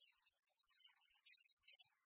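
Near silence, with only faint scattered traces of sound.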